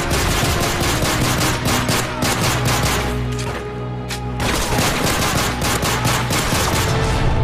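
Battle sound effect of rapid, dense gunfire and machine-gun bursts over music with a low steady tone, easing briefly about four seconds in before picking up again.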